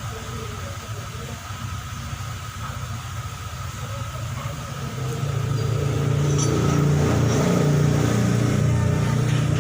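A vehicle engine running, growing louder about five seconds in and holding a steady low note.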